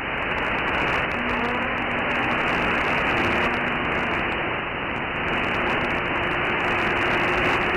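Radio receiver static: steady hiss of band noise on the open CB band between transmissions. Faint steady carrier whistles sit in it, one coming in about a second in and a higher one joining about three seconds in.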